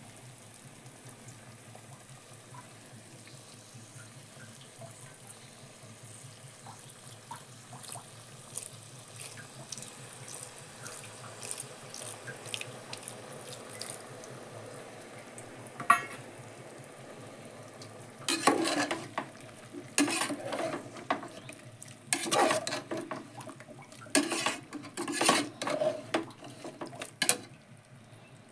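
Sliced potatoes frying in oil in an aluminium pressure cooker, a faint sizzle and crackle as tamarind water goes into the hot pan. From a little past halfway, a metal slotted spoon stirs and scrapes against the pot in repeated loud bursts.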